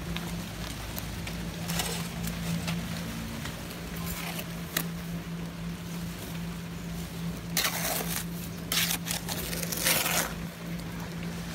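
A steel shovel scraping wet mortar in a metal wheelbarrow: several short rasping scoops, the loudest in the last four seconds. Under it, light rain hiss and a steady low hum.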